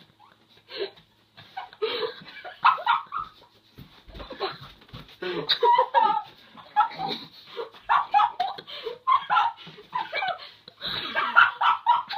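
Two young men laughing while chewing cookies, in many short, irregular bursts that start about a second and a half in.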